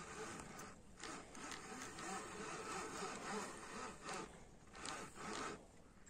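Small spinning reel being cranked, a faint mechanical whirring with a few short pauses, as a hooked carp is reeled in.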